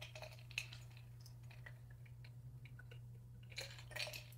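Faint clicks and scrapes from the plastic housing of a removed dishwasher circulation pump motor being turned over in the hand. They come in two clusters, near the start and near the end, over a steady low hum.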